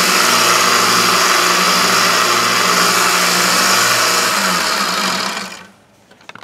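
Narrow belt sander running while the steel T-handle of a tap wrench is sanded against the belt, then switched off about four seconds in and winding down to a stop.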